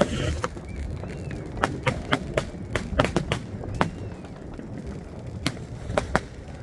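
New Year's Eve fireworks going off across the city: a string of sharp bangs and cracks at irregular intervals, some in quick clusters, over a steady low rumble of more distant explosions.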